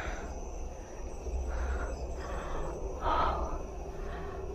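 Crickets chirping steadily at night, with soft irregular shuffling noises about once a second.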